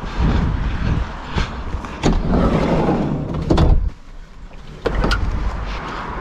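Knocks and clatter of a CAKE electric motocross bike being handled and wheeled out of the back of a van, with the door and metal parts banging, over a steady low rumble on the bike-mounted microphone.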